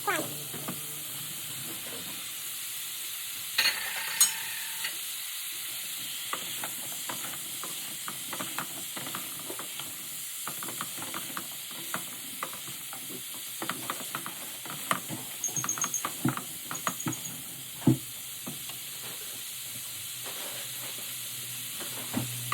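Celery and bell pepper sizzling in hot oil in a pan, with a cooking utensil clicking and scraping against the pan as the vegetables are stirred.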